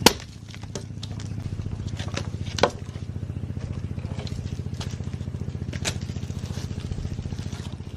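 A small motor running steadily with a fast, even pulse, broken by a few sharp knocks.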